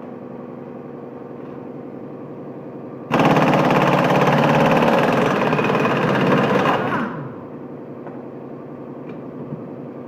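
Loud, rapid mechanical rattling that starts suddenly about three seconds in, runs for about four seconds and winds down, over a steady machine hum.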